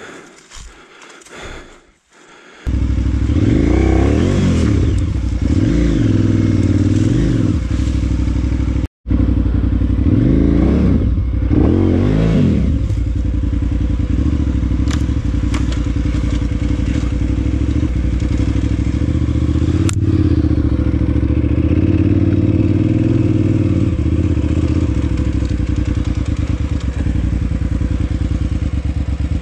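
KTM 990 Adventure S's V-twin engine comes in suddenly about two and a half seconds in, revs up and down a few times as the bike gets going, then runs steadily at a constant pace. Occasional knocks and clatter come from the bike on the rough track, and the sound cuts out for an instant near nine seconds.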